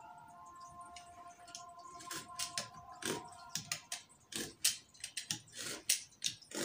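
Utility knife tip pricking a row of short cuts along a ruler into stiff roller-blind fabric, a quick irregular series of sharp clicks from about two seconds in. The dotted cuts mark the fold lines so the fabric folds easily.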